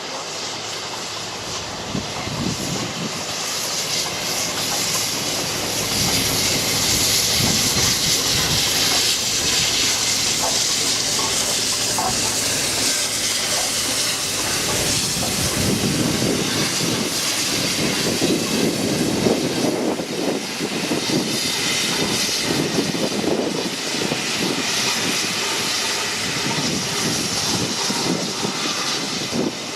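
Steam locomotive 60163 Tornado, an LNER Peppercorn A1 Pacific, letting off steam with a loud, steady hiss, with a heavier rumble from the engine about halfway through.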